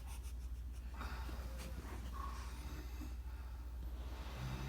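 A sleeping man snoring: a noisy, rasping breath about a second in and a low buzzing snore starting near the end, over a steady low hum.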